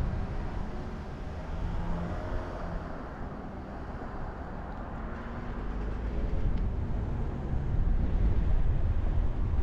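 Car on the move: a steady low rumble of engine and tyre road noise, easing off in the middle and growing louder again near the end.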